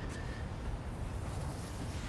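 Steady low background rumble and hiss, with no distinct impacts or other events.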